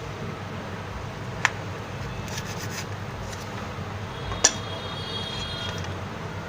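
Two sharp clicks about three seconds apart, small tools handled on the workbench, over a steady low hum.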